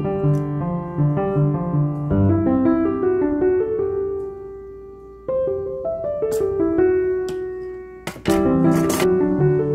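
Background piano music, a light melody of single notes and chords, with a few short noises about six and eight seconds in.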